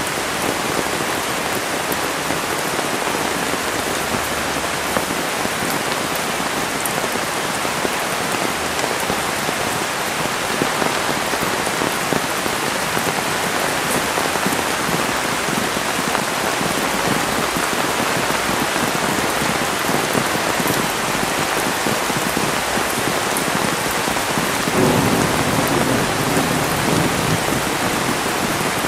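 Heavy rain pouring down steadily in a windy downpour. About 25 seconds in, a low rumble swells under the rain.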